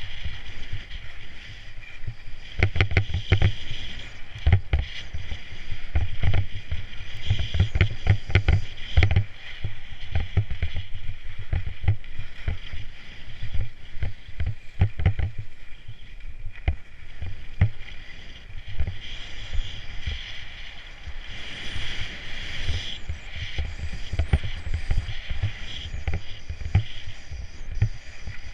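Skis sliding and scraping over groomed, packed snow during a downhill run, with a steady hiss and many irregular low thumps and knocks as the skis ride over the surface.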